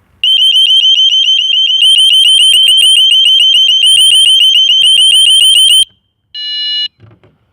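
KF7 burglar alarm siren sounding: a loud, high-pitched electronic tone pulsing about seven times a second, which cuts off suddenly after about five and a half seconds. A single short beep follows.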